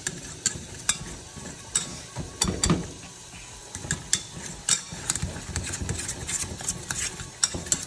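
Wire potato masher mashing cooked black beans in a stainless-steel saucepan, the metal masher clicking and knocking against the pan in an irregular run of strokes.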